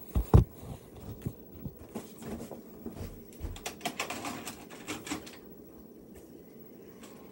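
A VHS cassette being pushed into a VCR and the deck's loading mechanism taking it in: a clatter of plastic clicks and mechanical clunks with a heavy thump at the start, dying down about five seconds in as the tape starts to play.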